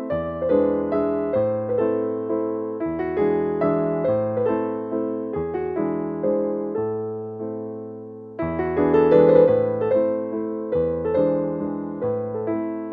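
Background piano music: struck notes that ring and fade one after another, softer for a stretch about six seconds in, then coming back louder about eight seconds in.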